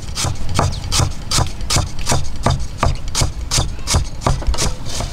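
Cleaver slicing lemongrass on a wooden chopping block: quick, even knocks of the blade on the wood, about five a second.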